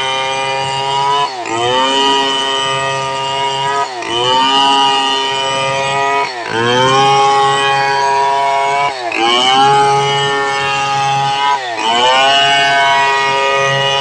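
Home-built two-stroke chainsaw copied from the Stihl 070, running at high revs while ripping a hardwood log lengthwise along the grain. The engine note dips sharply and climbs back about every two and a half seconds, five times over.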